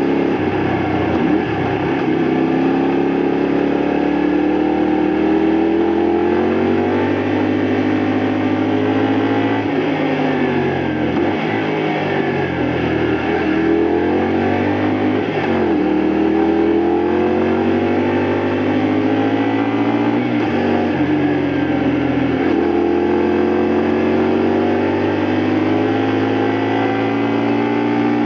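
A 2002 Honda Varadero XL125V's small V-twin engine under way on the road. The engine note climbs in pitch and falls back sharply several times, about five drops in all.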